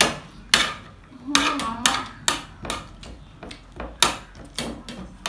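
Metal spoons clinking and scraping against ceramic plates while eating, a string of sharp clinks about two a second.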